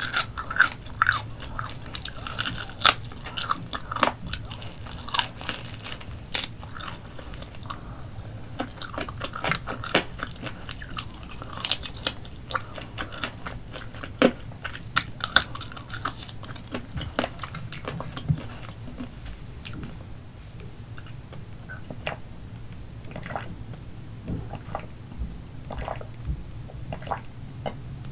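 Close-miked biting and chewing of grilled Portuguese chicken eaten by hand, with many short, sharp mouth clicks. The clicks thin out and soften in the last third.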